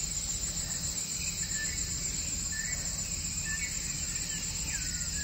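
Steady high-pitched chorus of forest insects, with faint short bird chirps and whistles now and then.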